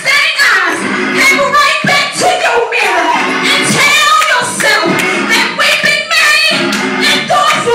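A woman singing a gospel song into a microphone, amplified over the church's loudspeakers.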